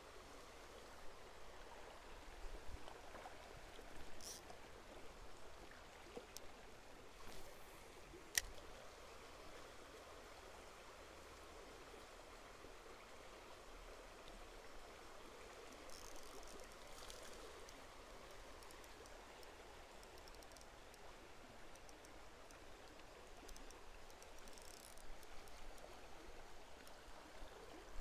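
Faint, steady flow of a shallow, stony stream, with a few light clicks, the sharpest about eight seconds in.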